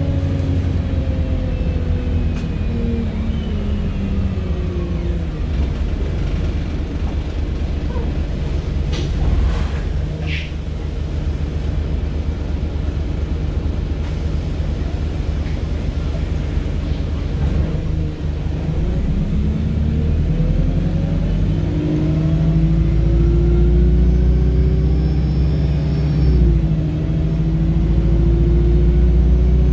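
Wright StreetLite DF bus running. Its drive whine falls away as it slows, then from a little past halfway it rises again as the bus accelerates. The low engine rumble grows loud, with a brief break near the end where the pitch drops and climbs again, like a gear change.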